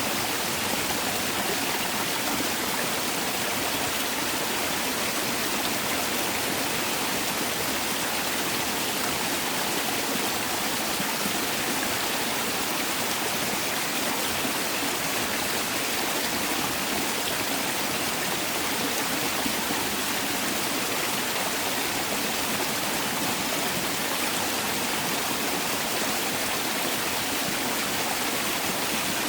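Mountain valley stream rushing steadily over rocks, a constant even water noise.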